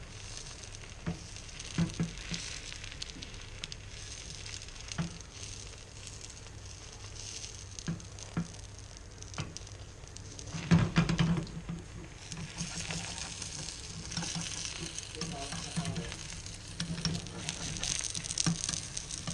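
Egg frying in oil in a small pan over a gas burner: a steady sizzle with scattered crackling pops. There is a louder burst about eleven seconds in, and the sizzle is stronger through the second half.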